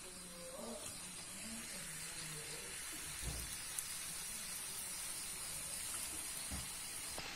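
Faint, steady sizzle of hot oil as folded dough pieces deep-fry in a wok, with a soft knock about three seconds in.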